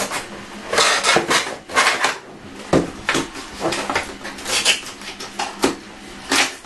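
Cardboard box and plastic packaging being handled: a string of irregular rustles, scrapes and light knocks.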